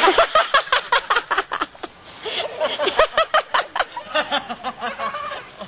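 Laughter in rapid, fast-repeating bursts, with a short break about two seconds in.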